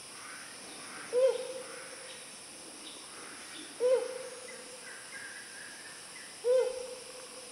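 Helmeted hornbill hooting: three loud single hoots about two and a half seconds apart, each bending up and down in pitch and trailing off in a long echo.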